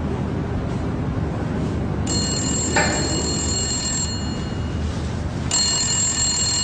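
A desk telephone ringing twice with an incoming call, each ring lasting about two seconds and the second starting about a second and a half after the first ends, over a steady low background hum.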